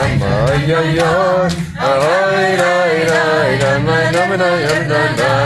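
A group of voices singing a wordless Yiddish melody together in unison, with hand clapping to the beat. The singing breaks off briefly about two seconds in, then starts again.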